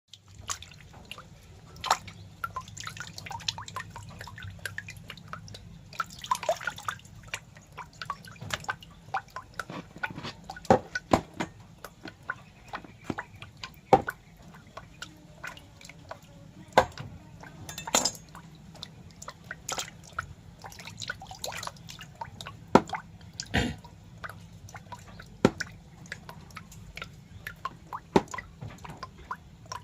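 Irregular wet clicks and drips, some sharp and loud, scattered unevenly over a faint steady low hum.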